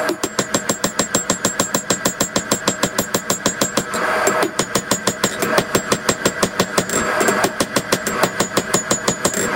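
Hand hammer striking red-hot steel held in tongs on a Peter Wright anvil: a fast, even run of blows, about six a second, each with a high ring, broken by brief pauses about four and seven and a half seconds in.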